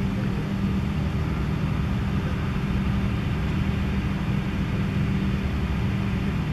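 Steady low mechanical drone, like a running engine: a constant hum that holds one pitch over a low rumble.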